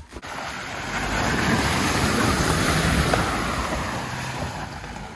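Mahindra Thar driving through shallow water at the edge of a lake, its tyres throwing up spray: a rushing splash with a low engine note under it, swelling about a second in and fading over the last two seconds.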